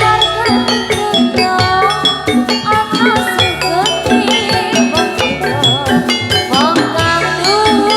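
Javanese jathilan music: drums and metallophone-style percussion keep a busy rhythm under a winding, ornamented melody.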